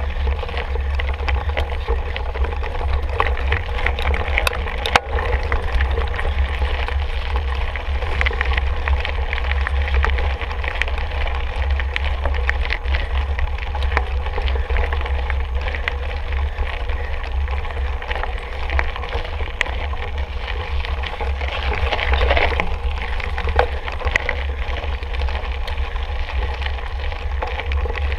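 Mountain bike being ridden over rough trail, with many small rattles and clicks from the bike and ground under a steady wind rumble on the microphone; a sharp knock comes about five seconds in.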